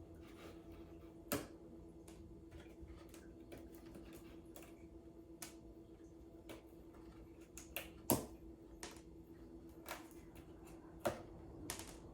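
Scattered light clicks and taps of cardboard pieces being handled and fitted together during assembly of a cardboard cat scratcher box, with three sharper knocks: about a second in, around eight seconds in and about eleven seconds in. A steady low hum runs underneath.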